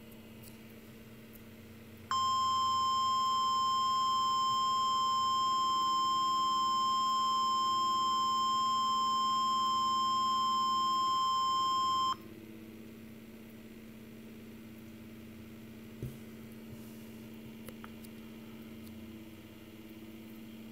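NOAA Weather Radio's 1050 Hz warning alarm tone, the alert that announces a test tornado warning. It is one steady, loud tone that starts about two seconds in, holds for about ten seconds and cuts off sharply. A faint radio hum and hiss lies underneath.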